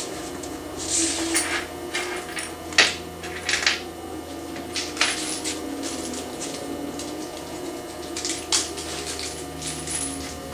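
Small metal hardware and hand tools clinking and clattering in scattered, irregular knocks while a CNC router kit's metal frame is assembled by hand, over a steady low hum.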